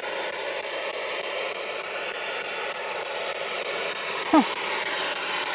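Steady hiss of outdoor background noise, with a brief short voice sound a little past four seconds in.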